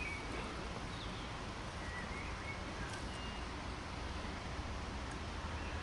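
Outdoor ambience: a steady background hiss with a few faint, scattered bird chirps.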